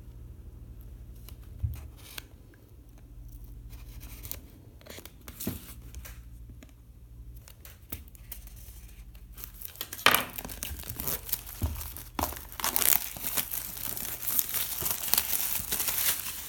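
A knife scoring the clear plastic shrink-wrap on a cardboard box, with scattered light clicks and scrapes. About ten seconds in comes loud crinkling and tearing as the wrap is ripped off.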